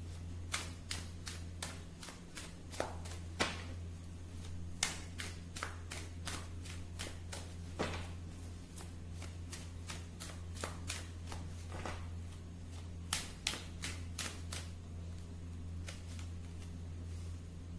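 A deck of tarot cards being shuffled by hand: irregular sharp card snaps and taps, several a second in clusters, over a steady low electrical hum.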